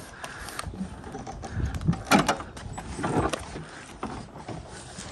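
Manual soft top of a BMW E30 convertible being folded back: the folding frame and the hinged top-compartment lid click and rattle, with a few sharp clatters about two and three seconds in.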